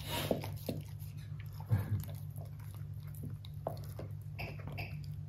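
A corgi chewing and gnawing on a whole chicken leg, with irregular small crunches and clicks, over a steady low hum.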